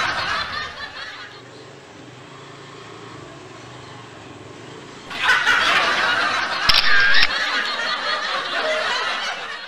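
Snickering laughter that fades over the first second, then returns louder about five seconds in after a few quieter seconds.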